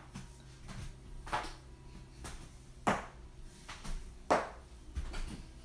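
Joints cracking during a back adjustment: several short, sharp pops about a second apart, the loudest about three and four seconds in.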